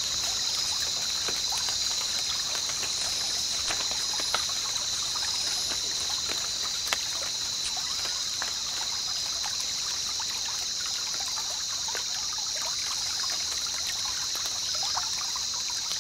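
Cicadas buzzing steadily, a high-pitched hiss-like drone that does not change, with scattered small clicks and rustles.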